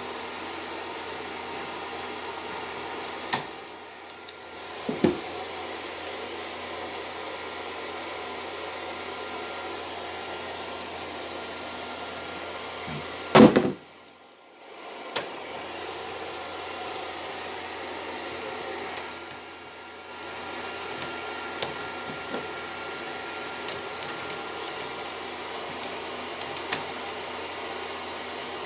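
A steady hiss with a few sharp clicks. About thirteen seconds in comes one loud pop, and the hiss drops out briefly after it.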